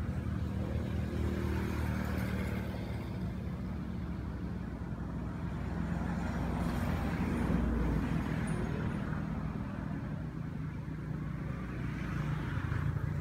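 A steady low engine hum, with a hiss above it that rises and falls.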